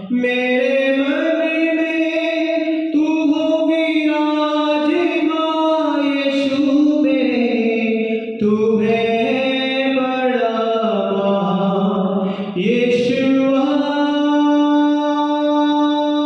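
A man singing a Hindi Christian worship song solo into a microphone, in long phrases of drawn-out notes that glide up and down, with short breaks between phrases. Near the end he holds one note steady.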